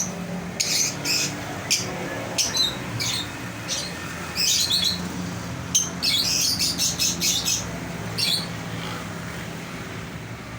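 A pair of olive masked lovebirds chirping in short, sharp runs of high calls, with pauses between the runs. A faint steady low hum runs underneath.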